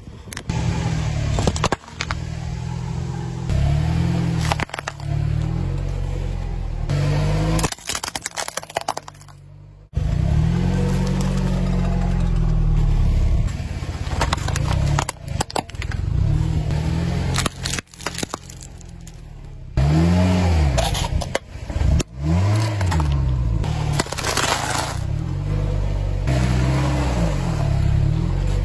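A car tyre rolling slowly over a series of objects and crushing them one after another, crushed potato crisps, a toy racing car in its plastic-windowed box, then soft cookies, with crunching, cracking and scraping over the low rumble of the car. The sound changes abruptly several times as one crush gives way to the next.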